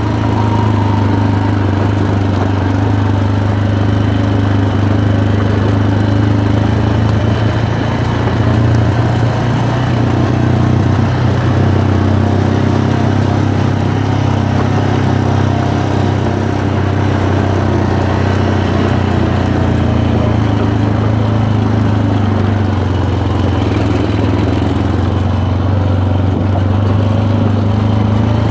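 ATV engine running steadily at cruising speed while riding along a gravel track, its low note holding nearly constant.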